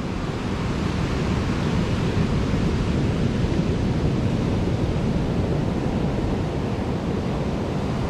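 Rough ocean surf breaking and washing up a sandy beach, a steady rushing noise, with wind rumbling on the microphone.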